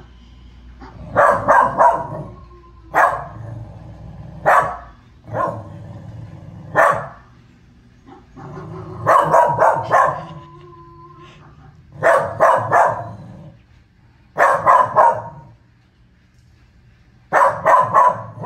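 Dog barking at a wolf on the television: sharp barks in bursts every second or two, often two to four in quick succession, the alarm barking of a dog at a perceived intruder.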